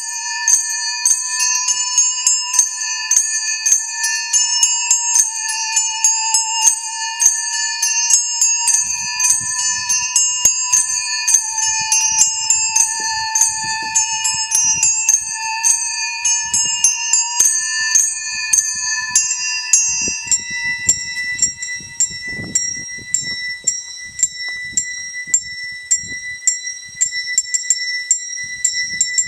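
Many small handbells rung in rapid, overlapping strikes at several pitches, over a musical saw holding a wavering tone. About twenty seconds in the ringing thins to quick repeated strikes on a single pitch, and the saw fades out soon after.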